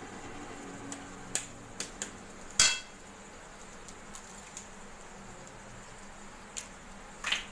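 Eggs being cracked on a metal kadai: a handful of sharp taps, the loudest about two and a half seconds in with a brief metallic ring, another strong one near the end.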